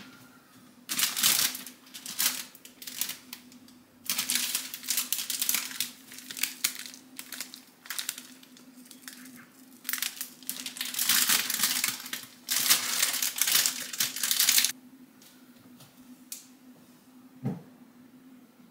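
Plastic crispbread bag crinkling as it is handled, in three long bursts of crackling. A single short knock comes near the end, over a low steady hum.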